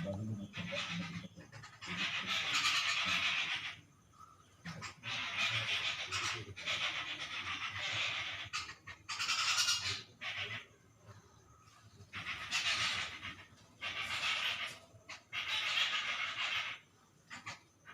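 Birds calling in harsh, noisy bursts about five times, each one to two seconds long, with short quiet gaps between.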